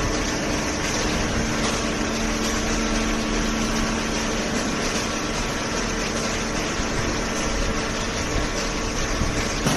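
Hydraulic cardboard baler running: the motor and pump make a steady, even hum.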